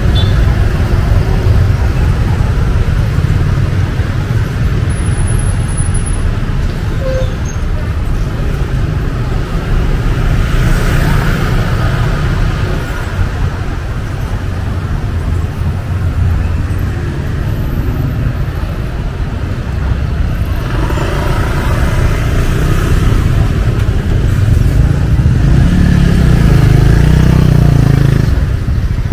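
Busy market street ambience dominated by motorbike and traffic engines, with a steady low rumble that swells louder a few times as vehicles pass close.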